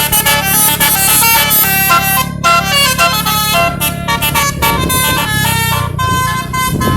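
Bus telolet horn, a multi-tone air horn set, playing a quick melody of short stepped notes, over the low hum of the bus's engine, which grows louder and rougher near the end.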